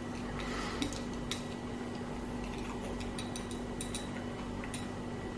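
Wooden chopsticks lightly clicking and tapping against ceramic bowls and plates while eating, a scatter of small clicks over a steady low hum.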